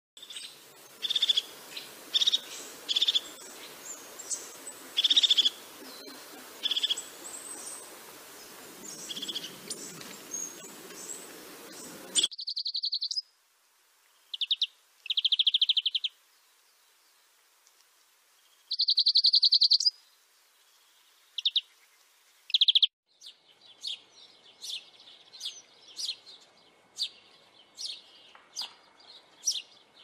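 Crested tit calling in short high trills about once a second, over a steady background hiss. After a cut about 12 seconds in, a European greenfinch sings rapid trills lasting about a second each. After another cut, about three-quarters of the way through, a house sparrow chirps repeatedly, about twice a second.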